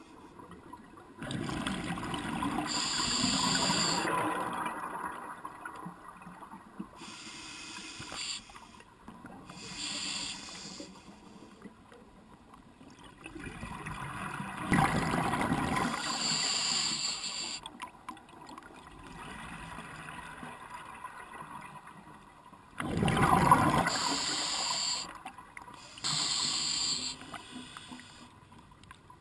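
Scuba diver breathing underwater through an open-circuit regulator: slow breaths every several seconds, each with a rush of exhaled bubbles and the hiss of the regulator.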